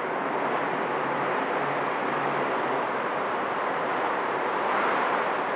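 Steady outdoor rushing noise with a faint low hum underneath, unchanging throughout.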